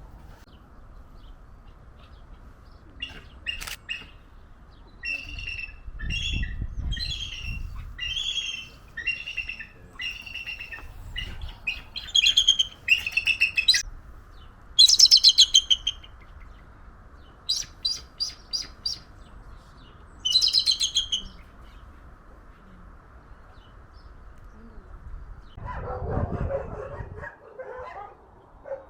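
A bird calling: a long run of high, repeated call notes, some running together into rapid chattering trills. The calls stop around two-thirds of the way through, and a lower, rougher call follows near the end.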